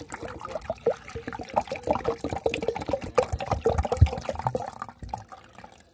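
Water sloshing and gurgling in a plastic pet water bottle as it is handled and fitted to the cage, with a knock about four seconds in.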